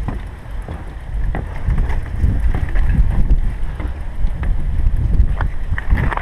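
Wind buffeting the microphone of a chest-mounted GoPro on a moving bicycle: a loud, fluctuating low rumble, with scattered clicks and rattles.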